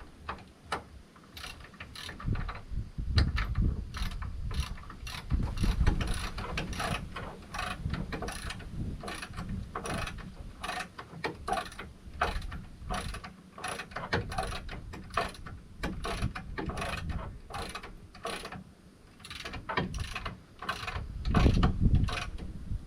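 Ratchet wrench with a 15/16-inch socket clicking in steady back-and-forth strokes, about two to three clicks a second, as it tightens the hitch pin bolt of a hitch-mounted bike carrier. A few dull knocks come with the strokes, heaviest near the end.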